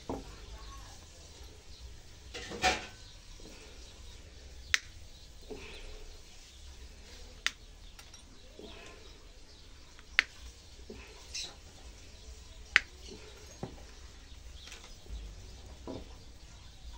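Sharp single clicks of pliers snipping the training wire off a juniper bonsai, one every two to three seconds, with a longer scraping crunch about two and a half seconds in.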